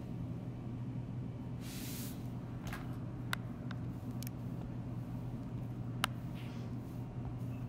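Steady low background hum with a handful of sharp, separate taps of a stylus on a tablet screen as a line is drawn, and a short hiss about two seconds in.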